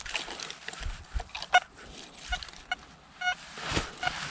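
Metal detector giving a few short, faint beeps as its coil is swept over a freshly dug hole, signalling a metal target in the soil, amid scuffs and a thump of handling and digging.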